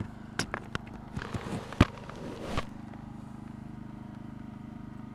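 Motorcycle engine running steadily at low revs, with a quick cluster of clicks and knocks about half a second to two and a half seconds in, the loudest near the middle.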